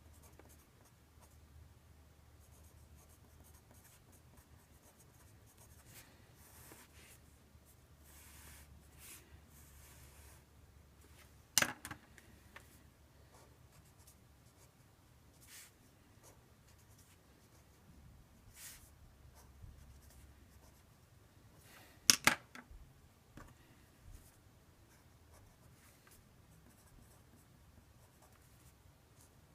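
Faint scratching of a pen drawing a free body diagram, broken by two sharp clicks, one a little before halfway and one about three quarters of the way in.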